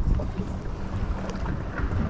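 Wind buffeting the microphone as a steady low rumble, with choppy water washing around a small boat.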